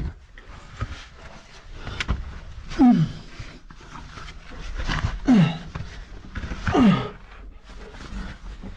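A man breathing hard from exertion, with three loud voiced exhales that each slide down in pitch, like groaning sighs. There are sharp knocks at the start and about two seconds in.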